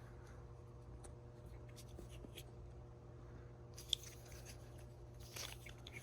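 Faint clicks and rustles of plastic ignition coil packs being handled and turned over while they are checked for oil, with one sharper click about four seconds in, over a steady low hum.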